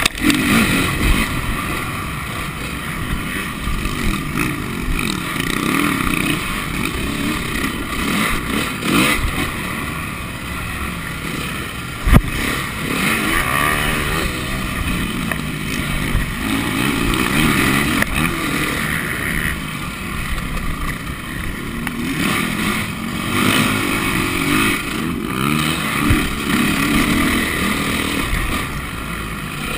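Honda motocross bike's engine, heard from on board, revving hard and easing off again and again as it is ridden over a dirt track, with wind noise. There is one sharp knock about twelve seconds in.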